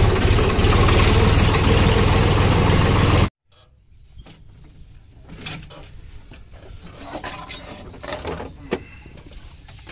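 Swaraj 963 FE tractor's diesel engine running steadily while driving, cut off suddenly about three seconds in. After that come quieter scattered knocks, clinks and rustles.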